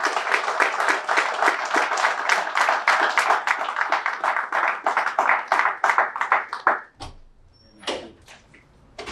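A group of people applauding, with many hands clapping rapidly, thinning out and stopping about seven seconds in. A couple of light knocks follow near the end.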